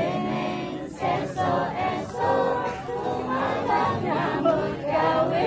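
A group of people singing a song together.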